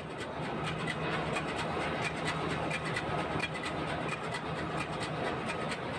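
Steady engine-room din from a ship's running two-stroke main diesel engine, with a low hum and a fast, even ticking.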